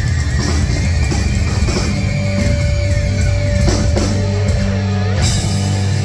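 Theremin played live over a heavy rock backing: a held tone, then wavering swoops up and down in pitch, above a loud sustained bass and guitar drone.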